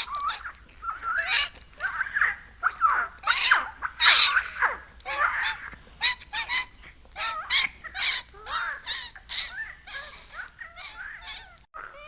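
Quick run of short, pitched creature calls, many sliding up or down in pitch: edited, pitch-shifted animal sound effects.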